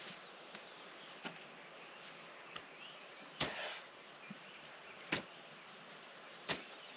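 A hoe striking the soil four times, about once every one and a half to two seconds, over a steady high chirring of insects.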